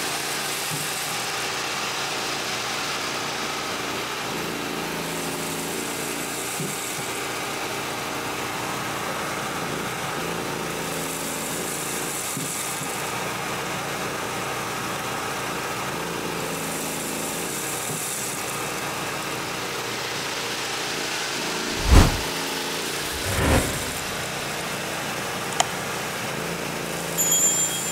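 Portable dust-collector blower running steadily on a sawdust chute, with an engine running beneath it. Two heavy low thumps come a little over a second apart near the end.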